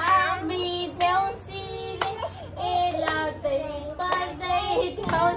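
A young girl singing, with hand claps keeping time roughly once a second.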